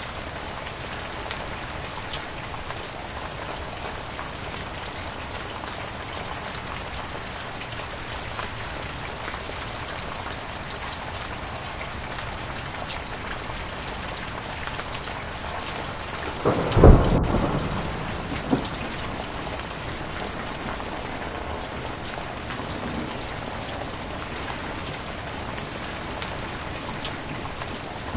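Heavy rain falling steadily, with one loud clap of thunder about two-thirds of the way through that rumbles off over a couple of seconds.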